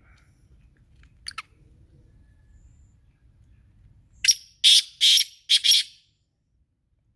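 Male black francolin calling: a quick pair of sharp notes about a second in, then four loud, rasping notes in quick succession near the end.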